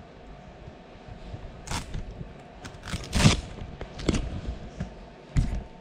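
A few irregular knocks, clicks and scrapes, the loudest about three seconds in, over a faint steady hum.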